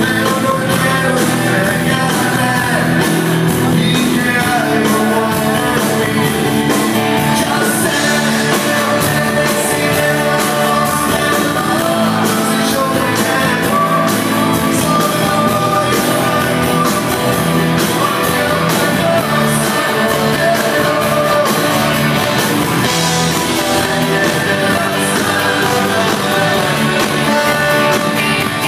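Live rock band with a saxophone section, electric guitars, keyboard and drums playing a song at a soundcheck.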